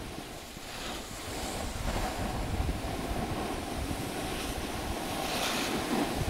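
Wind buffeting the camera microphone and skis hissing over packed snow as the person filming skis down the slope; a steady, unpitched rushing.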